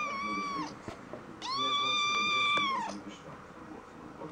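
Young tabby kitten meowing twice in a high voice: a short meow at the start, then a longer one held at a steady pitch from about a second and a half in.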